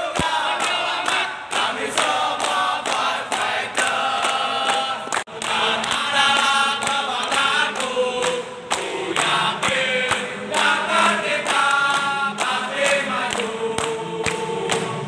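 Men's voices singing a rhythmic chant together, a morale-boosting yell, with steady hand claps keeping time.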